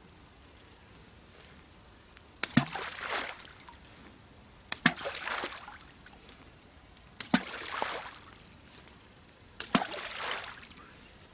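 Four balls of groundbait thrown into the river one after another, each landing with a sharp plop and a short splash, about every two and a half seconds.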